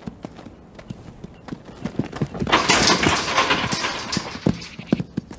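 Hoofbeats of a young quarter horse stallion moving loose on dirt, irregular thuds throughout. They grow louder and denser from about halfway to near the end.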